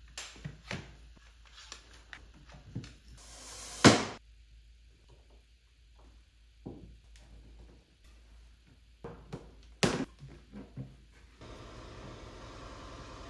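Clicks and wooden knocks of a furniture glue-up: a one-handed trigger bar clamp is squeezed tight, and walnut frame parts and posts are knocked together and set in place. There is one loud sharp knock about four seconds in and another about ten seconds in, and a steady noise sets in near the end.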